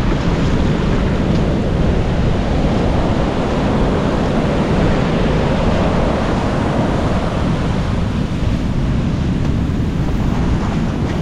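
Sea surf washing steadily onto the beach, with wind buffeting the microphone and adding a heavy low rumble.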